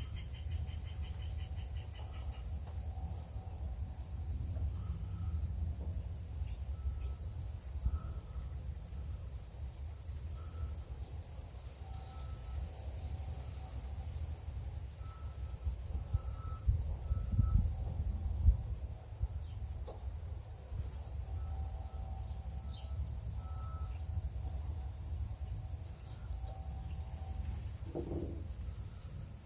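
Steady high-pitched insect chirring over a low background rumble, with faint short chirps repeating throughout. A few soft knocks from handling the trimmer's muffler parts come about two-thirds of the way through.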